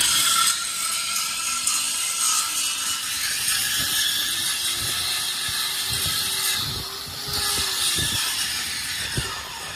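Metal being worked with a power tool during disc harrow fabrication: a loud, steady, harsh hiss with a crackling edge, and a few dull knocks in the second half.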